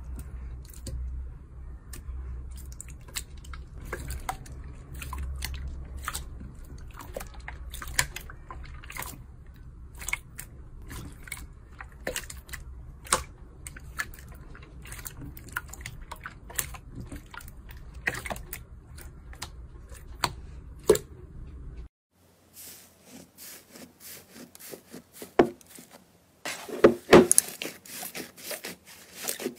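Hands squishing and poking clear slime in a glass dish, giving many sticky pops and clicks over a low hum. After a sudden cut there are a few sparse clicks, then near the end louder, denser crackling squelches as a thick slime is kneaded.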